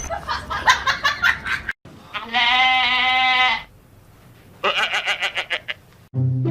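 An animal's call: one long, wavering cry lasting about a second, with runs of quick pulsing sounds before and after it.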